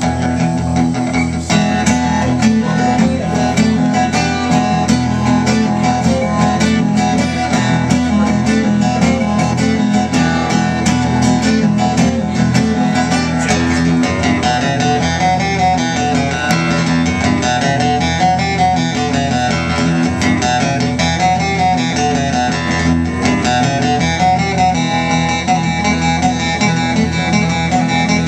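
Acoustic guitar strummed in an instrumental passage with no singing. The strumming fills out about a second and a half in and then keeps a steady rhythm.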